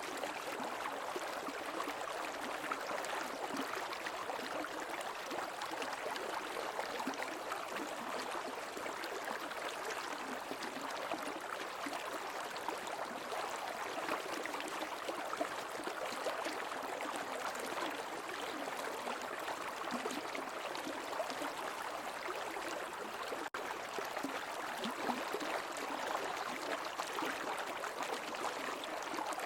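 Creek water flowing, a steady, even babble of running water with no change in strength. It cuts out for a split second about three-quarters of the way through.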